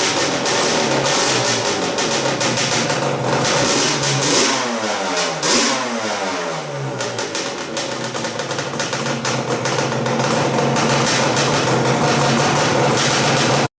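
A freshly rebuilt Yamaha Banshee 350's twin-cylinder two-stroke engine running. It is blipped sharply twice about four and five and a half seconds in, and the revs fall back to a steady run. The sound cuts off abruptly near the end.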